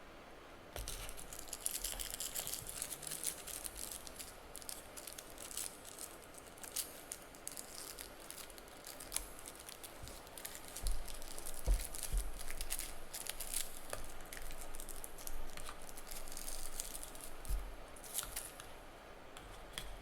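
Earbud packaging being handled and unwrapped by hand: rustling plastic and paper with many scattered clicks and taps, starting about a second in.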